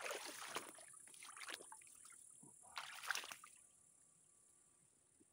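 Water splashing and sloshing in three short bursts during the first half, over a steady high-pitched insect drone.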